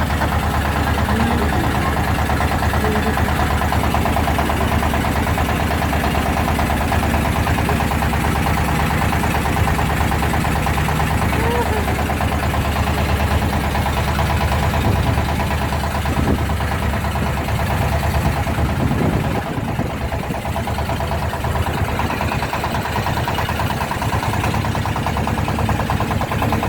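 A boat's engine running steadily with an even, rapid throb. Faint voices can be heard under it at times.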